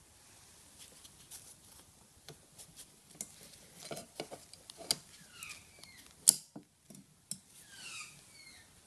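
Small metal clicks and taps as a steel bracket strip is handled and clamped with locking pliers (vice grips), with a sharp snap about six seconds in as the pliers lock shut. A few short falling chirps sound in the background.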